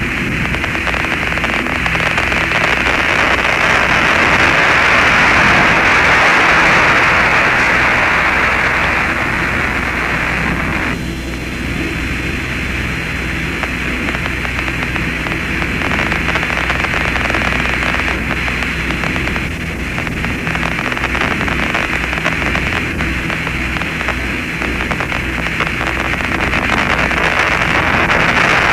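Steady radio static hiss from the Apollo 15 lunar-surface communications downlink, with a low hum underneath and no voices. The hiss drops in level about eleven seconds in.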